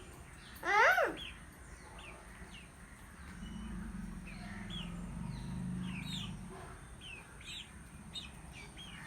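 Chicks peeping over and over in short high chirps, with one loud call from the mother hen about a second in.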